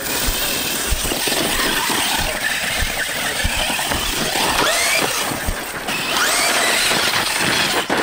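Arrma Kraton 6S BLX electric RC truggy driving over dirt: its brushless motor and drivetrain whine rises and falls with the throttle, with sharp rising revs about five and six seconds in, over tyre and dirt noise.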